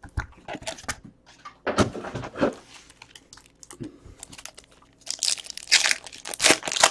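Foil trading-card pack wrappers crinkling and being torn open by hand, in irregular crackly bursts that grow louder about five seconds in.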